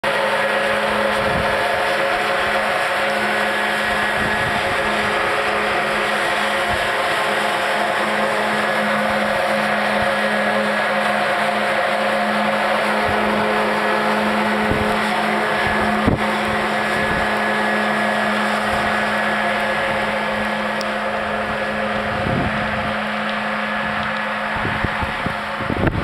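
Blizzard Snow Cannon artificial-snow machine running at full output: a steady mechanical drone with a constant low hum. It eases slightly near the end, where a few low thumps come in.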